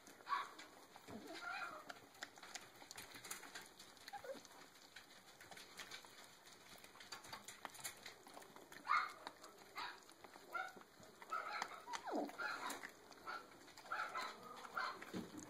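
Six-week-old miniature dachshund puppies chewing and pulling at raw chicken drumsticks: faint wet gnawing and clicks of teeth on meat and bone, with short high puppy squeaks now and then, more of them in the second half.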